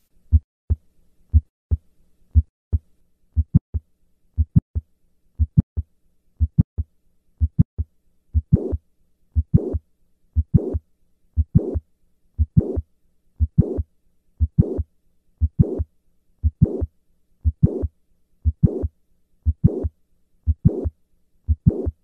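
Heart sounds of mitral valve prolapse at about one beat a second. The first few beats are plain lub-dub pairs. From about three seconds in, a mid-systolic click sounds between the two heart sounds. From about eight seconds in, a late systolic murmur follows the click: a short hiss running up to the second heart sound.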